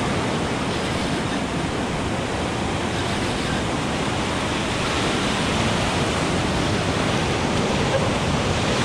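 Ocean surf breaking and foaming white water washing around a rock: a steady, even rush of water.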